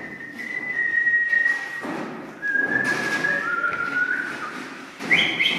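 Whistling in long held notes that step down in pitch, with a short break a little before halfway and a higher run of notes starting near the end.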